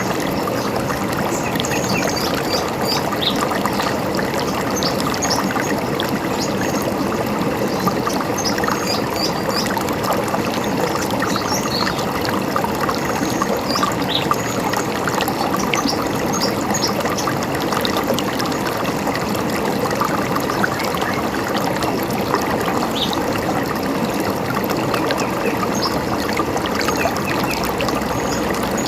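A river or stream running steadily over stones, a constant trickling rush of water, with short bird chirps scattered high above it.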